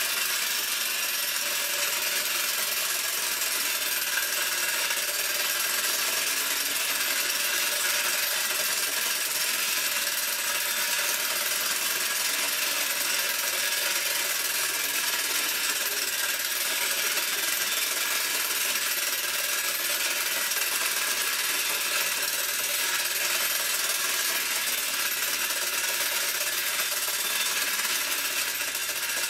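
1950s Chein tin wind-up merry-go-round's clockwork spring motor running, a steady mechanical whirring and ticking of its gears as the carousel turns.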